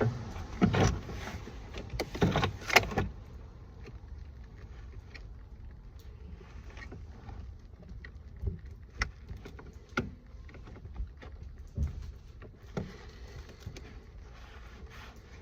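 Hands working on a car's door trim: a burst of loud knocks and clatter in the first three seconds, then scattered sharp clicks and taps of plastic parts over a low rumble.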